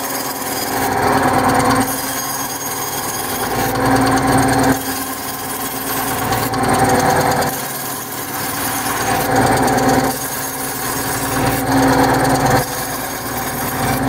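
Small benchtop bandsaw running, its blade cutting through a balsa wood blank. The sound swells and eases every few seconds as the blade is fed through a series of relief cuts.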